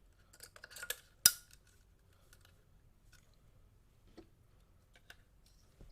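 Plastic clicks and rattling, then one sharp snap, as the detachable plug piece is pressed off a power adapter; a few faint ticks follow.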